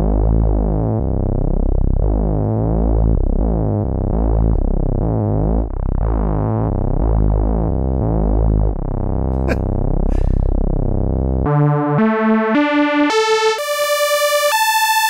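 Cherry Audio LowDown software synthesizer, a Moog Taurus bass-pedal emulation, playing a deep, repeating bass-note pattern. About eleven seconds in it changes to single notes climbing step by step up through the octaves to a high held tone, showing how far up its range goes.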